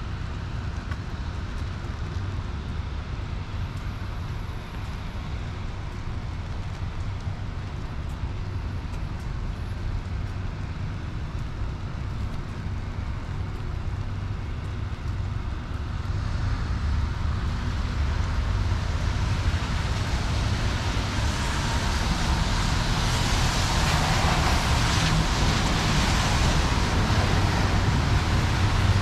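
Road traffic on a wet city street: a steady low rumble, with a hiss of tyres on wet pavement that builds and grows louder over the second half.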